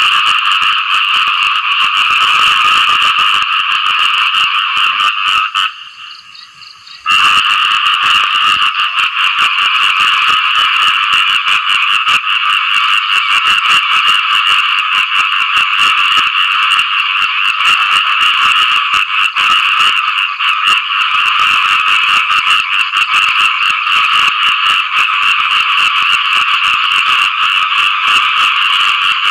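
Khiat i-mo frogs (เขียดอีโม่) giving mating calls after rain: a loud, continuous, rapidly pulsing chorus in two high pitch bands. It cuts out suddenly for about a second around six seconds in, then carries on.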